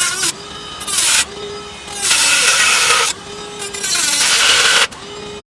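High-speed power tool whining as it runs free, then biting into the hollow metal door frame in four loud, harsh spells of cutting, its pitch sagging each time it loads up. The sound cuts off abruptly near the end.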